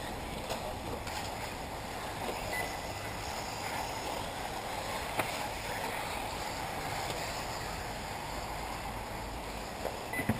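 1/8-scale electric off-road RC buggies running around a dirt race track, heard from a distance as a steady noisy hiss, with one sharp click about five seconds in.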